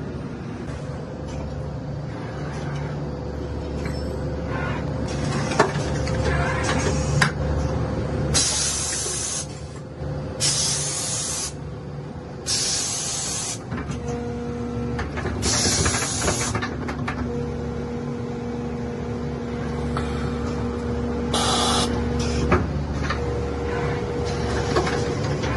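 Automated stator production machinery running with a steady hum and a few sharp clicks, broken by five short hisses of compressed air from its pneumatic cylinders and valves, each about a second long, in the middle stretch.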